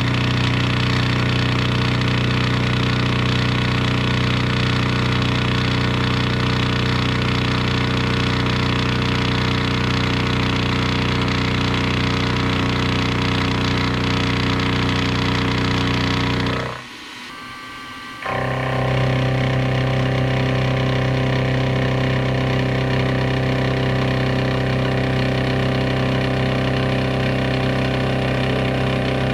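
A metalworking machine tool running steadily with an even motor hum. It drops out for about a second and a half about two-thirds of the way through, then runs on again.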